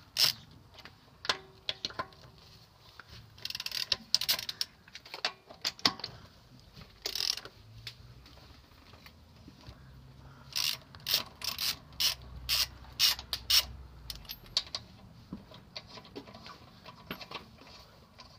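Ratchet wrench clicking in short runs, with hand tools clinking, during work on the car's rear wheel.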